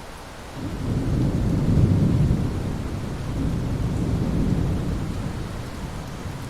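Steady rain with a long roll of thunder that swells in about half a second in, peaks around two seconds, rumbles on in a second swell and slowly fades.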